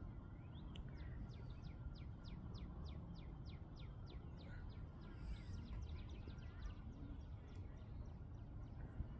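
A bird singing a fast run of falling notes, about five a second, then a second, fainter run a few seconds later, over a low steady background rumble.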